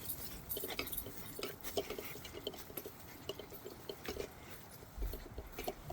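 Dogs moving about, with scattered light clicks and short scuffling sounds at irregular times.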